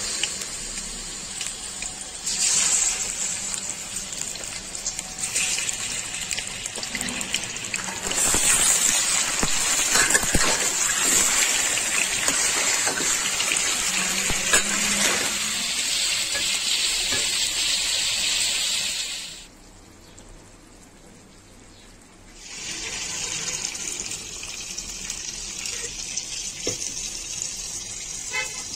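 Chicken pieces sizzling in hot cooking oil in a steel karahi as they fry, a steady loud hiss. The sizzle drops away for a few seconds about two-thirds through, then resumes.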